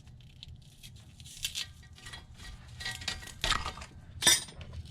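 Metal hand tools clinking and clattering as they are handled and set down, a few sharp clanks with brief ringing, the loudest about four seconds in.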